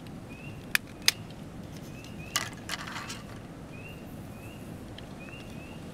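Sharp plastic clicks and snaps as the faceplate of a disposable camera is pried off: two single clicks about a second in, then a quick cluster of clicks near the middle.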